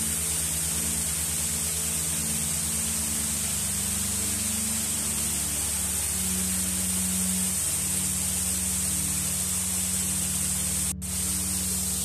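Waterfall pouring over tiered travertine rock: a steady rushing, hissing noise of falling water that dips out for a moment near the end.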